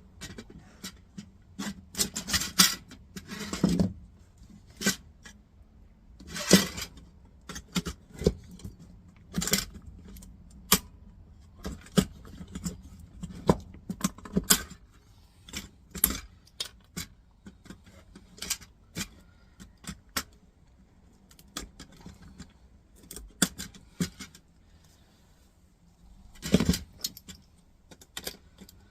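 Irregular small metallic clicks and clinks of little brass pin receivers being worked free and handled with hand tools. The clicks come thick in the first half, thin out later, and there is a louder clatter near the end.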